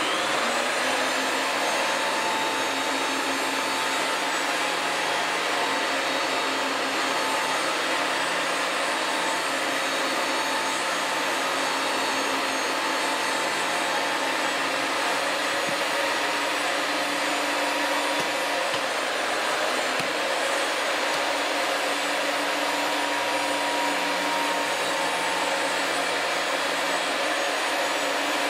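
RIDGID 535 pipe threading machine running steadily, its universal motor giving a constant whine as it spins the pipe while threads are cut.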